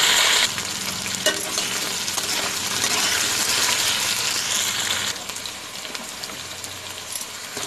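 Potato and yam chunks frying in hot oil in a pan, sizzling steadily while a spatula stirs them, with a sharp click of the spatula about a second in. The sizzle is loudest at first, drops about half a second in and again about five seconds in.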